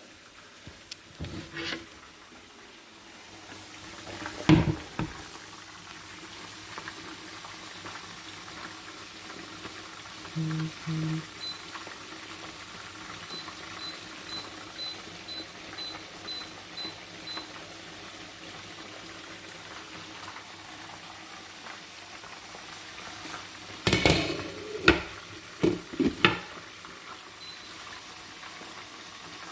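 A pot of stew boiling steadily on the stove, with a few sharp knocks and clinks of a utensil against the pot, several together near the end.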